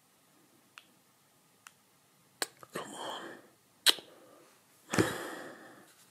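Handling noises on a sofa as a phone and cereal bowl are moved about: a few faint clicks, then sharper clicks and a rustle, a loud click, and a soft thump about five seconds in followed by a breathy rustle that fades.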